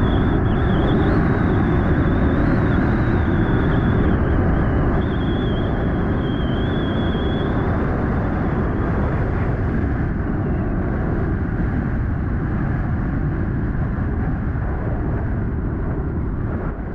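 Heavy wind buffeting on the microphone of an e-bike rider moving at speed, a steady low rumble throughout. A thin high whine wavers in pitch over it and fades out about ten seconds in.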